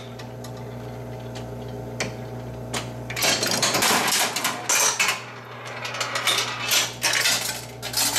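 1937 Rock-Ola World Series baseball arcade game running: a steady motor hum with a few single clicks, then from about three seconds in, its 3/4-inch steel ball bearings clatter and clink through the metal mechanism as a pitch is thrown.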